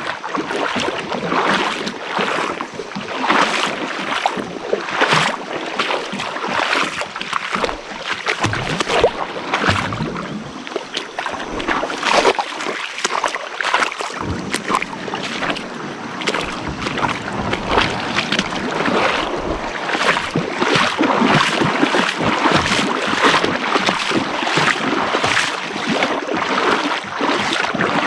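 Rhythmic splashing and sloshing of river water, about one to two splashes a second, over a steady rush of water as a kayak moves through a shallow riffle.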